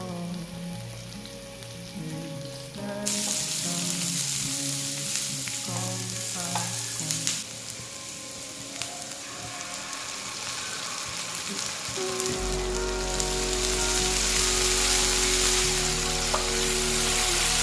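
Food sizzling as it fries in hot oil in a pan, starting suddenly about three seconds in, with background music throughout.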